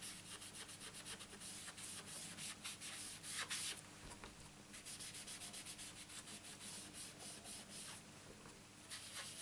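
Foam sponge rubbing ink onto cardstock in quick, repeated scratchy strokes. There is a short pause about four seconds in while the sponge is dabbed on the ink pad, then the rubbing resumes.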